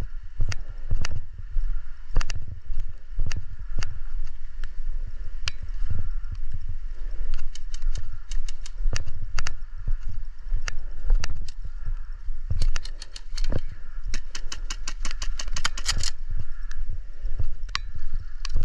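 Airsoft guns firing in a close-quarters game: scattered single shots and sharp cracks, then a fast burst of many shots about 12 to 16 seconds in, over a steady low rumble.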